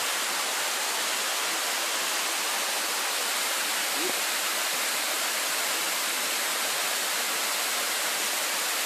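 Waterfall in a desert canyon pouring down rock, a steady, even rush of falling water.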